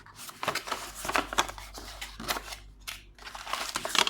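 Accessories being handled in their cardboard box and packaging: irregular rustles, crinkles and light knocks.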